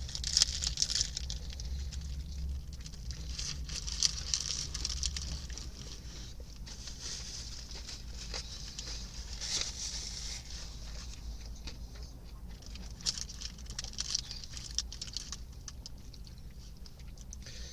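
Close-up chewing of a crispy fried chicken sandwich: irregular crunching and crackling with wet mouth noises, over a steady low hum.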